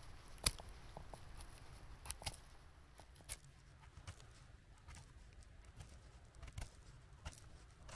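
Porcini mushroom stems being trimmed with a small knife: a dozen or so scattered sharp clicks and light handling rustles, the loudest about half a second in.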